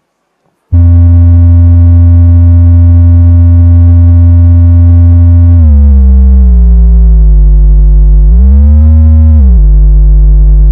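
A loud, deep electronic buzzing tone starts just under a second in. Its pitch slides down after about five seconds, swoops back up briefly near nine seconds, then drops again.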